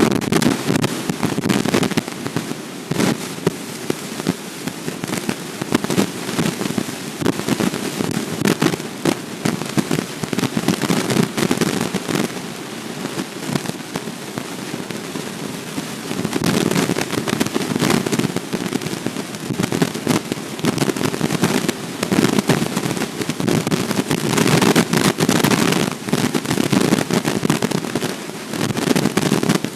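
Snowstorm noise on an outdoor nest camera's microphone: wind buffeting it with a low rumble and a dense, irregular crackle of many small hits. It starts suddenly at full strength and keeps going loud and uneven.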